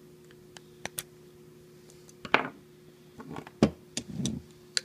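Small metallic clicks and scrapes of a flat screwdriver prying the E-clip off the linkage pivot of a dual wiper motor, with a louder scrape a little after two seconds in and a sharp click about three and a half seconds in. A steady low hum runs underneath.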